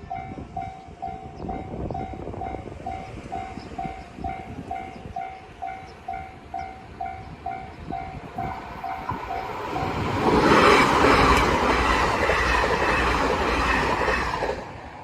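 Japanese railroad crossing warning bell ringing its steady ding-ding, about three strikes a second. From about eight seconds in a train approaches and passes loudly, drowning out the bell.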